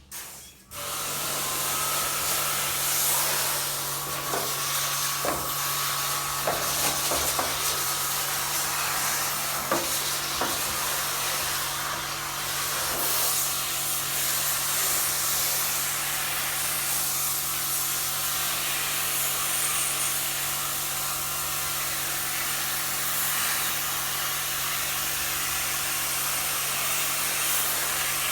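High-pressure washer cleaning an air conditioner: the pump motor starts about a second in and runs with a steady hum under the hiss of the water jet spraying, with a few faint ticks along the way.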